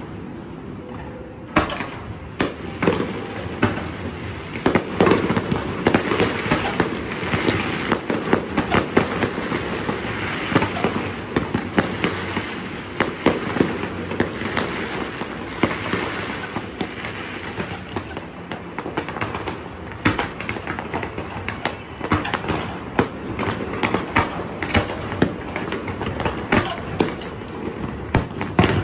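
Fireworks display: aerial shells bursting, with a dense run of bangs and crackling that starts after a quieter second or so.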